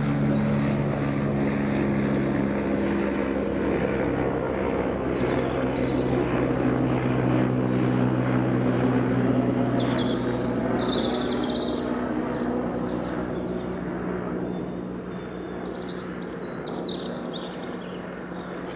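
AgustaWestland AW109 twin-turbine helicopter passing overhead: a steady rotor-and-turbine drone with low humming tones, fading in the last few seconds as it flies away. Small birds chirp briefly several times over it.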